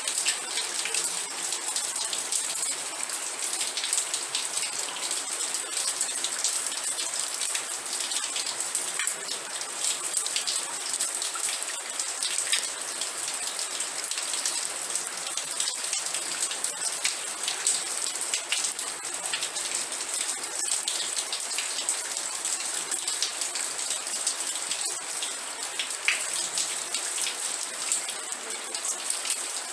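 Steady rain falling, a dense patter of close drops with now and then a louder single drop.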